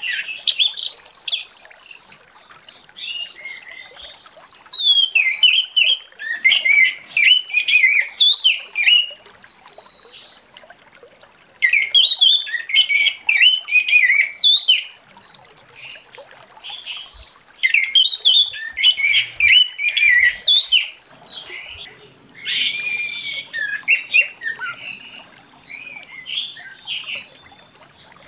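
Orange-headed thrush singing a long, varied song of rapid notes sweeping up and down in pitch, delivered in bursts of a few seconds with short pauses between them.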